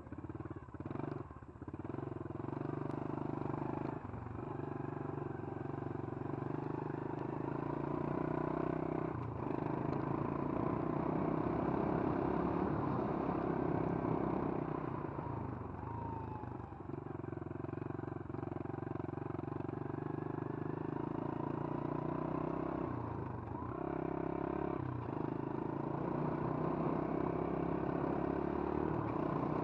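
Small pit bike engine running under way, its pitch dropping off and picking up again several times as the throttle is eased and reopened.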